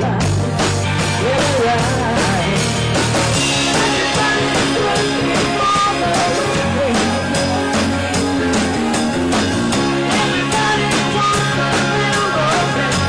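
A rock band playing live, with electric guitars over a steady drum-kit beat and a singer's voice on top.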